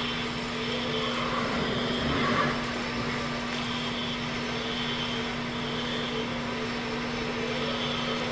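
A steady mechanical hum and drone, with a brief louder swell about two seconds in.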